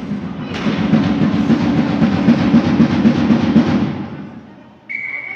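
Rapid drumming in the rink's stands, a dense roll of drum beats that fades away about four seconds in, followed near the end by a brief steady high tone.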